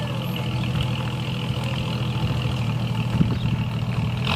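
1996 Jeep Cherokee's engine idling steadily, with a short sharp noise right at the end.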